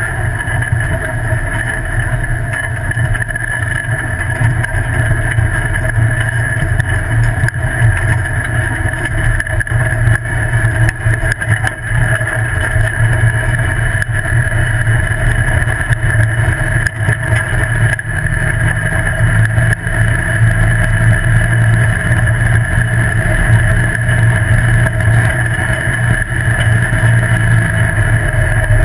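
Tube-frame off-road buggy's engine running steadily as it drives down a dirt trail, with a steady whine above the engine note and tyre and dirt noise. The engine note rises a little and gets louder in the last third as it speeds up on a straight.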